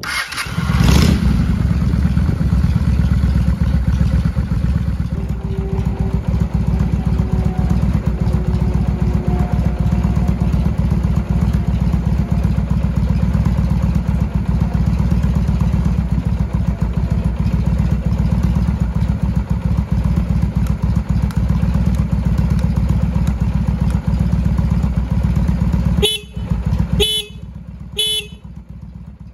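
Honda Steed 400's V-twin engine catching on the electric starter and idling steadily through aftermarket slash-cut mufflers. Near the end the horn gives three short beeps about a second apart.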